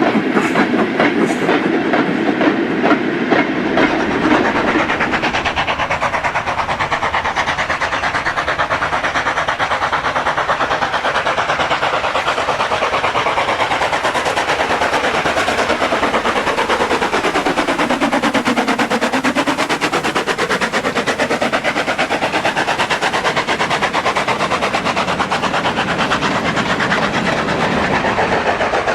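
Model train running along the layout's track, its wheels and mechanism making a steady rapid clicking over the rails. It draws closer and then moves away again a little past halfway.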